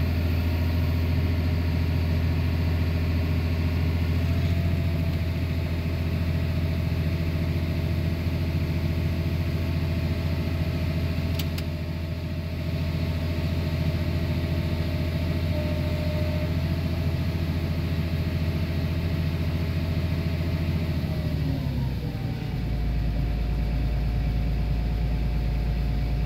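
Tractor engine running steadily, heard from inside the cab while the grain cart is being unloaded. About 21 seconds in, the engine speed drops and it settles at a lower, steady pitch.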